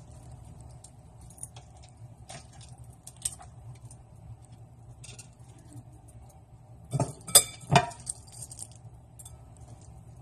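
Hands packing stuffing into a turkey in a roasting pan, with light scattered taps and clinks against the pan. Three sharp clinks come close together about seven seconds in.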